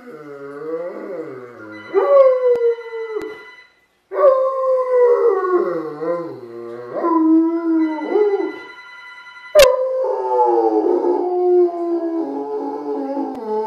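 A Great Pyrenees howls in long, wavering howls that rise and fall, set off by a telephone ringing. Two spells of the phone's steady electronic ring sound through the howling, and a sharp click about ten seconds in ends the second one.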